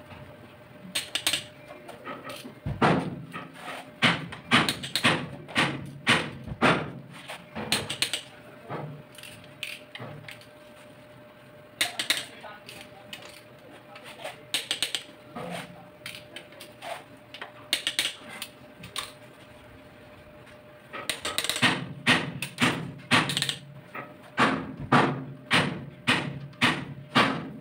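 Ratchet of a long torque wrench clicking in runs of quick metallic clicks as cylinder head bolts are tightened, with pauses between the runs.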